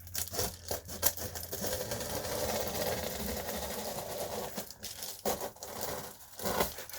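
Reflectix foil-bubble insulation crinkling and rustling as a strip is handled and fitted around a duct boot. There are scattered crackles near the start and near the end, and a steady scraping, tearing-like noise lasting about three seconds in the middle.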